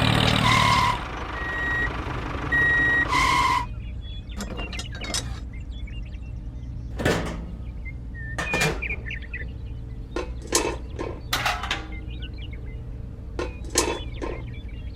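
A few short, evenly pitched electronic beeps like a reversing alarm in the first few seconds, then a string of scattered sharp clicks and knocks over a steady low hum.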